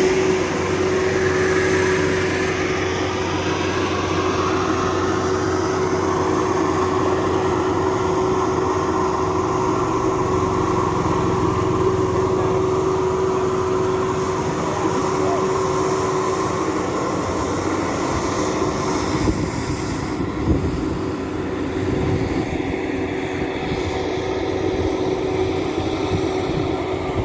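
Maxxi Bimo 102 rice combine harvester running steadily, its engine hum carrying a constant whine, with a few low knocks a little past the middle.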